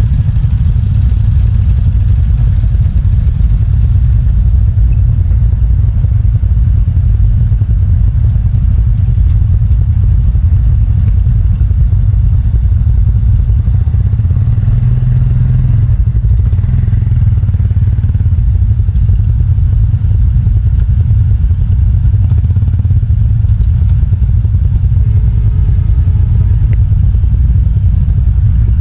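Motorcycle engines idling close by, a steady heavy low rumble.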